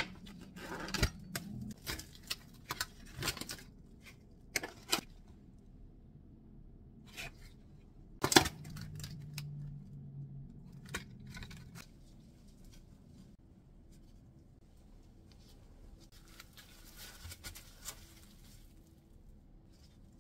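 Plastic food packaging crinkling and rustling, with scattered clicks and taps of plastic takeout containers and lids being handled; one sharper knock about eight seconds in, then only faint rustling.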